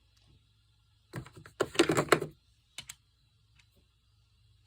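Small metal sockets clicking and clattering as they are handled, in a quick irregular cluster a little over a second in, then a couple of single clicks.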